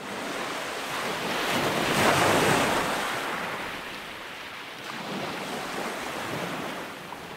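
Ocean surf washing onto a sandy beach: a steady rush of waves that swells to its loudest about two seconds in, then eases off.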